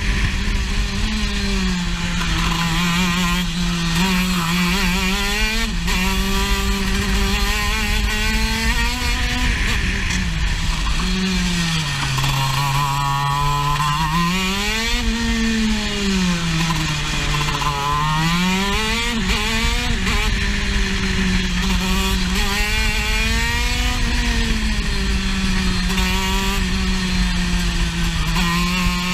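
Racing kart engine heard from on board, its revs climbing along the straights and dropping off into the corners, with the deepest dips about twelve and seventeen seconds in.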